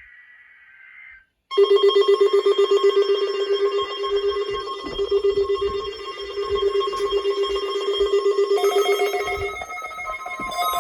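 Emergency-alert warning alarm for a weekly test: a loud electronic tone, pulsing rapidly like a telephone bell, starts about one and a half seconds in after a brief faint higher tone. Near the end it changes to higher steady tones.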